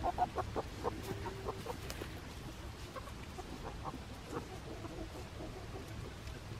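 Hen clucking: a quick run of short clucks at the start, a drawn-out note about a second in, and a few more clucks around four to five seconds in.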